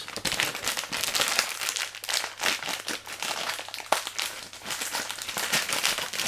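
Packaging crinkling and rustling as a replacement washing-machine door hinge is unwrapped by hand, with one sharper click about four seconds in.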